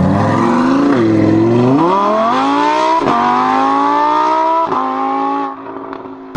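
A high-performance car engine accelerating hard, its revs climbing steadily through the gears with three quick gear changes, each a brief break in the sound. About five and a half seconds in, the engine note falls away as the driver lifts off.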